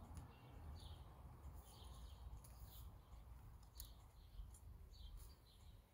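Faint bird chirps, short and repeated about one or two a second, over a low rumble, with a few light clicks.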